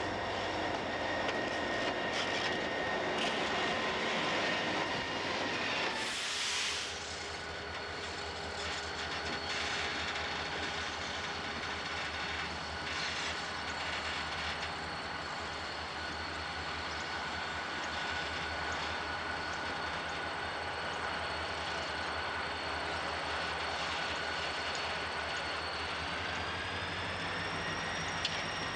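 A freight train running past on the track, a steady mixed rumble and rolling noise with a few steady high tones in it; the sound changes abruptly about six seconds in.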